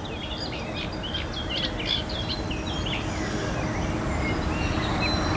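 A warbler in the reeds singing a rapid, chattering run of short, varied notes, busiest in the first three seconds, over a low rumble that slowly grows louder.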